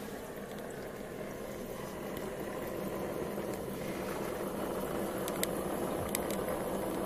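Propane-fired Stirling engine running steadily, a low whir with the hiss of its propane burner. A few faint clicks near the end.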